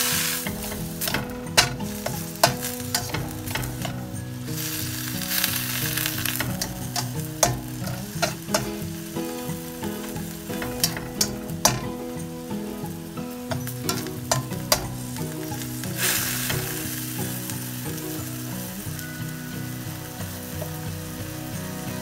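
Choy sum sizzling as it is stir-fried in a steel wok, with the spatula clacking and scraping against the wok again and again. The sizzle surges louder about five seconds in and again about sixteen seconds in. The clacks grow sparse over the last several seconds.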